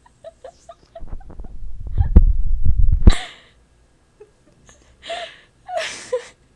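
A person belching long and loud for about two seconds, a deep pulsing rumble, ending in a sharp breath. A few short breathy sounds follow near the end.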